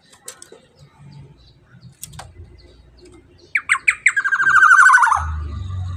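Black-naped oriole calling: a few quick downward-sweeping notes, then a harsh, buzzy rattle lasting about a second and a half. A low rumble follows near the end.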